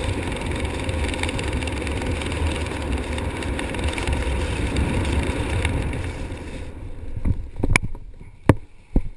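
Steady wind rushing over a helmet camera's microphone during a parachute descent, cutting off suddenly about two-thirds of the way through as the canopy slows for landing. A few sharp thumps follow as the skydiver touches down on grass.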